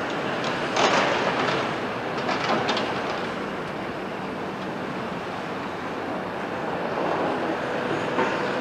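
Caterpillar 374 excavator's diesel engine running steadily while it works on a demolition site, with masonry rubble crashing and clattering loudly about a second in, more clatter a little later, and a short knock near the end.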